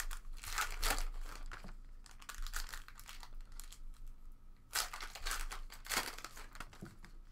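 Trading card pack wrappers crinkling and cards rustling as packs of 2017 Panini Contenders football cards are opened and handled, in irregular bursts with a quieter stretch midway.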